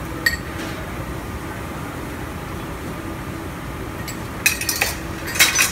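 Dishware clinking in a commercial kitchen over a steady background hum: one clink just after the start, then a quick run of clinks and clatter near the end.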